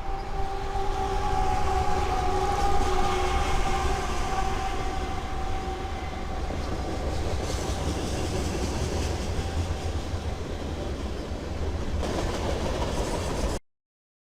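A train passing close by, its horn sounding one long steady note that fades out about six seconds in, over the rumble and clatter of the wheels on the rails. The sound cuts off abruptly near the end.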